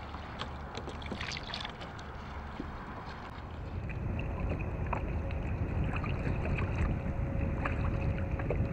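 Small waves lapping and slapping against a kayak's hull on open water, with scattered small splashes. About four seconds in the sound changes to a heavier, louder low rumble.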